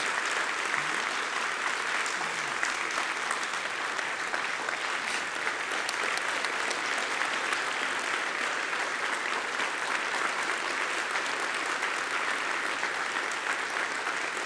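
A large congregation applauding: dense, steady clapping from many hands.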